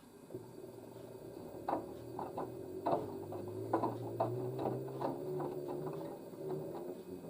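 LG DirectDrive washer-dryer drum turning a load of wet towels. The motor whines, rising slightly in pitch partway through, with irregular knocks and clicks from the drum. The machine is trying to balance an unbalanced load before it will spin.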